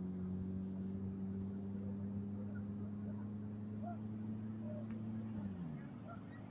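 An engine running steadily, its pitch creeping up slightly and then dropping away about five and a half seconds in.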